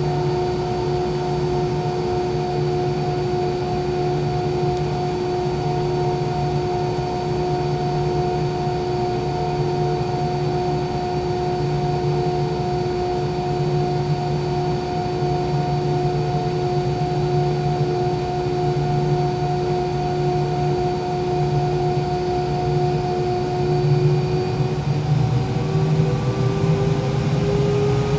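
Cabin sound of a McDonnell Douglas MD-90's rear-mounted IAE V2500 turbofans at taxi power: a steady whine of several held tones over a low, pulsing hum. Near the end the whine starts to rise in pitch as the engines begin to spool up.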